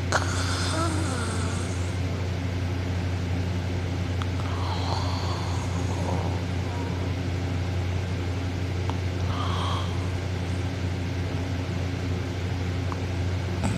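Steady low hum with a few faint clicks; no distinct snore stands out.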